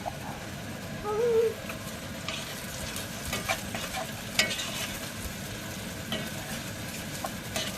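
Potatoes and onions frying in hot oil in a pan: a steady sizzle with scattered crackles and pops.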